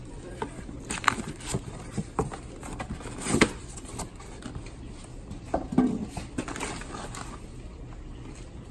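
Cardboard shipping box being opened by hand: flaps folded back and the lid lifted off, with scattered knocks and rustles, the loudest about three and a half seconds in. Near the end, hands rustle the packing inside the box.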